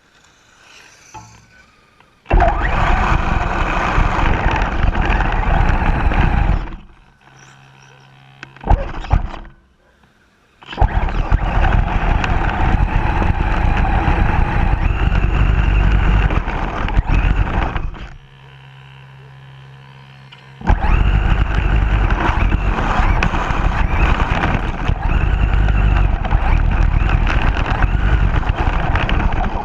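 RC car driving in three runs of several seconds each, its motor and wheels making a loud, rough rumble. Each run starts abruptly, and between runs only a faint low hum remains.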